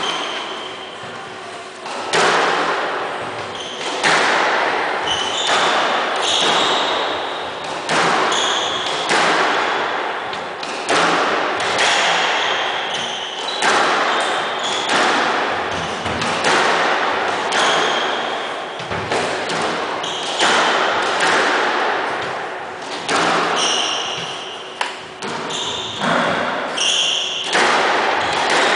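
Squash rally: the ball cracks off rackets and the walls about every one to two seconds, each hit echoing around the court, with sneakers squeaking on the wooden floor in between.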